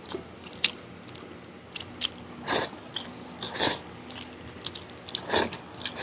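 A person chewing food close to the microphone, with about five short, separate chewing sounds spread through the few seconds.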